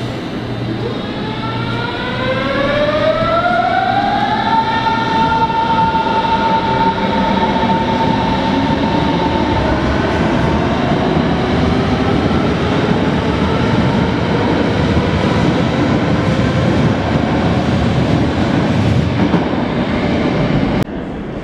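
Berlin S-Bahn class 481 electric train pulling out of the platform. Its traction motors' whine rises in pitch over the first few seconds, then holds steady and fades, over the steady rumble of the wheels rolling on the rails as the cars pass.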